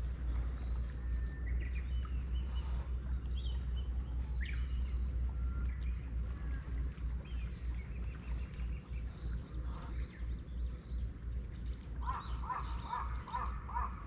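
Outdoor birds calling, with scattered short chirps and whistles and a quick run of about six repeated notes near the end, over a steady low rumble.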